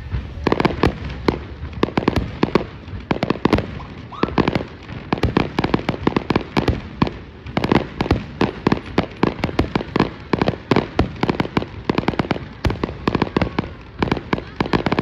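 Aerial fireworks display going off in a dense barrage: rapid sharp cracks and bangs, several a second, over a low rumble.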